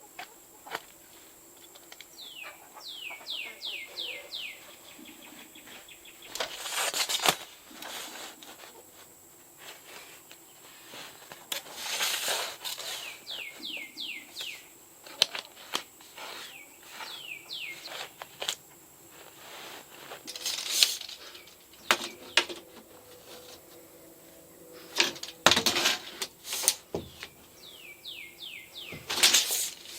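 A small bird singing a quick run of about six high notes, each falling in pitch, three times. Louder short bursts of rustling noise come between the songs.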